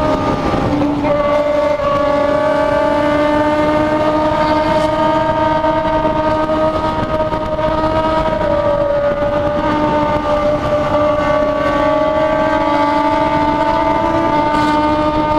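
Inline-four sport motorcycle engine with an aftermarket exhaust, held at high, steady revs while riding, with a brief dip in pitch about a second in.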